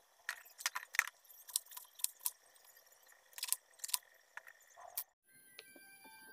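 Kitchen knife slicing through a fresh cabbage onto a wooden cutting board: about a dozen irregular crisp crunching cuts. About five seconds in the cutting stops and soft background music with steady high tones begins.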